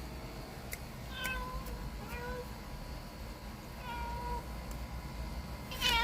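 Domestic cat meowing four times, short calls spaced a second or two apart, the last one the loudest, near the end.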